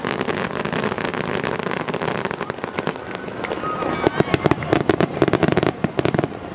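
Fireworks display: aerial shells bursting in a continuous string of bangs and crackling pops, at their fastest and densest between about four and six seconds in.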